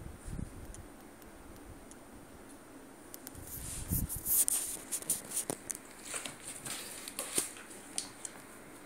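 Irregular patter of light scratches and clicks from a kitten's and a poodle's paws and claws as they play-fight on a rug. It is busiest in the second half, with a couple of soft thumps.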